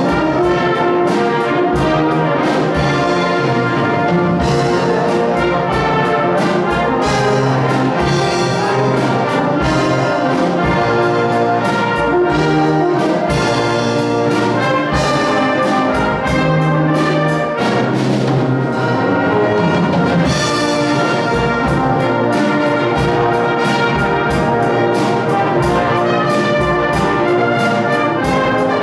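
Brass band playing, with a drum set keeping a steady beat.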